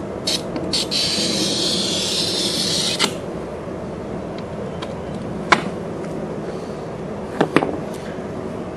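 A hand-held blade scrapes along the score line on the back of a quarter-inch glass mirror: a few quick short scrapes, then one long scrape of about two seconds that ends in a click about three seconds in. After that comes a low steady background with a few sharp taps, one about five and a half seconds in and two close together near the end.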